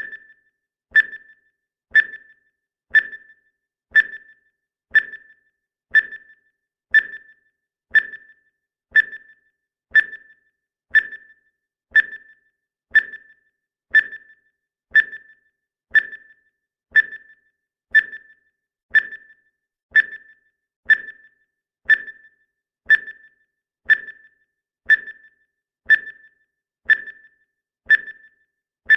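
Countdown timer's ticking sound effect: one short, pinging tick every second, evenly spaced.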